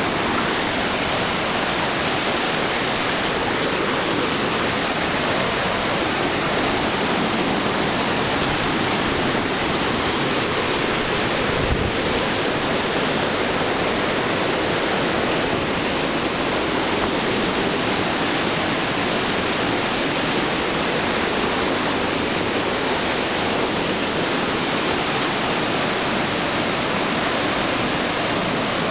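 Rushing whitewater: a steady, unbroken rush of fast-moving water, even in level throughout.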